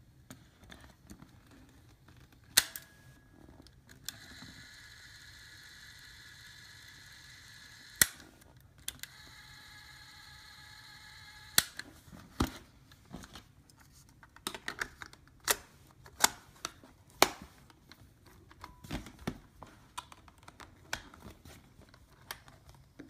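Plastic-and-metal clicks and snaps of a Sony Walkman cassette player being handled: its cassette door and transport keys. About four seconds in, a steady whir of its small motor starts and runs for several seconds, broken once by a click, then cuts off with a loud snap, followed by a quicker run of clicks.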